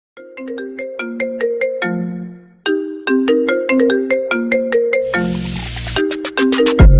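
Intro music: a bright, ringtone-like melody of quick mallet-like notes that pauses briefly, then builds with rising hiss and bass into a heavy electronic drop near the end.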